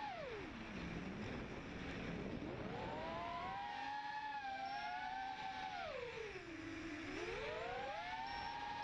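Mini quadcopter's four 2300 kv brushless motors and props whining, heard from the onboard camera over a steady rush of air. The pitch drops steeply twice, once just after the start and again about two-thirds through, as the throttle is cut, and climbs back each time as the throttle comes up again.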